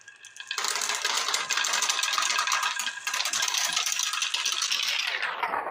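Many marbles rolling and clicking along a marble-run track, making a dense, continuous clatter that starts about half a second in.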